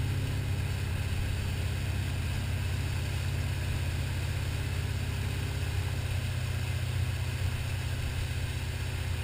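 Tow boat's engine running steadily at speed, a low drone, with the even hiss of its churning wake.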